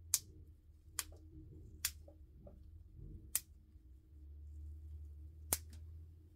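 Five sharp clicks, irregularly spaced and loudest at the very start, from the metal snap clips on the base of a hair topper being worked open and shut by hand.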